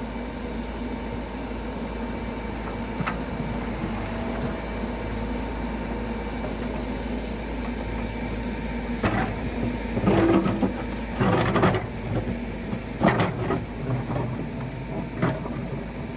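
Hidromek backhoe loader's diesel engine running steadily while the rear bucket digs in a shallow pond. From about nine seconds in there are several loud bursts of scraping and splashing as the bucket works the pond bed.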